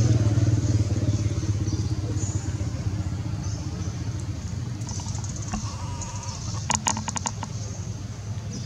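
A motor engine running with a steady low hum that slowly fades. About seven seconds in comes a quick run of about eight sharp, high chirps or clicks.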